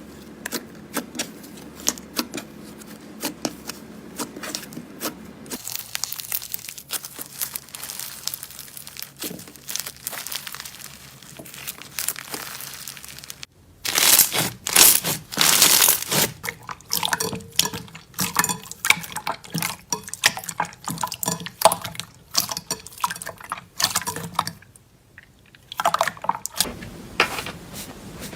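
Slime being squeezed, stretched and poked by hand, making dense, irregular sticky clicks, pops and crackles. The texture changes abruptly several times as one clip follows another.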